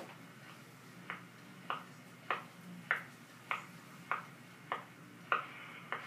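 I.C.S. cylinder phonograph running the lead-in of a cylinder record at 100 rpm: a sharp click about every 0.6 seconds, once per turn of the cylinder, over a low steady hum of surface noise and motor. The recording's music just begins near the end.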